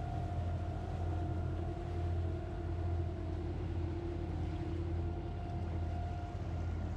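Sailing yacht's engine running steadily under way: a constant low drone with a few steady tones above it.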